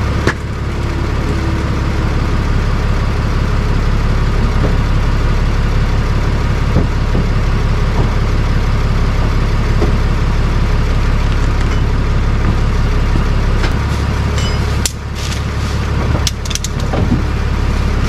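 Tow truck engine idling with a steady low drone, with a few sharp clicks and knocks about three quarters of the way through.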